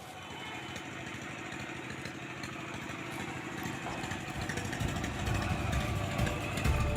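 A motor running steadily over a noisy background, its low rumble growing louder about two-thirds of the way in.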